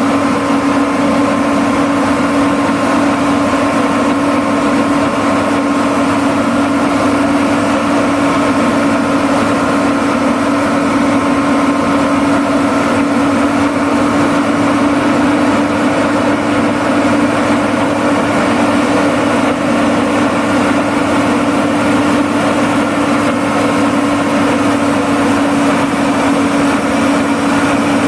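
Engine of a track-mounted GT 6300 slipform machine running steadily at a constant speed, an even hum holding one pitch.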